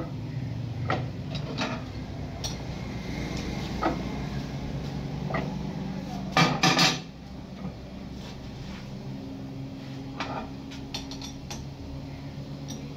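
Steel clanks and knocks from fitting a four-jaw lathe chuck and working it with a steel bar and chuck key, with a quick run of loud clanks about six and a half seconds in, over a steady low machine hum.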